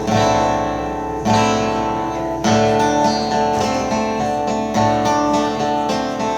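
Acoustic guitar strumming chords, with a new chord struck about every second and a quarter.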